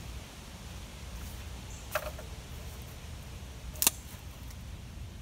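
Two short sharp clicks, about two seconds apart, the second louder, over a steady low rumble.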